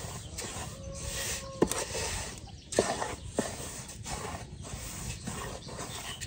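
A wooden spatula stirring dry semolina in a large metal pan: the grains rustle and scrape in strokes, with a few sharp knocks of the spatula against the pan.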